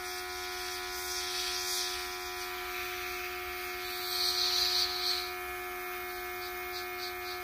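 Small airbrush compressor running with a steady motor hum, while the airbrush hisses as it sprays paint, loudest about four seconds in.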